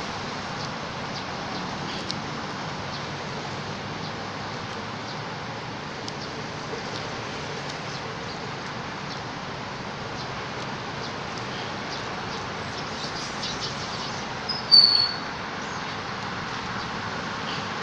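Steady outdoor background hiss with scattered faint clicks, and one short, high-pitched squeak about fifteen seconds in that stands out as the loudest sound.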